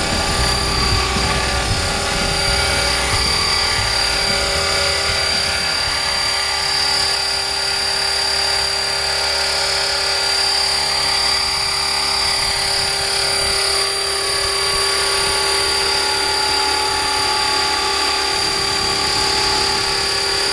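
Electric RC helicopter (Align T-Rex 500 Pro mechanics in an MD 500E scale fuselage) hovering just above the ground, its motor and rotors giving a steady, even whine.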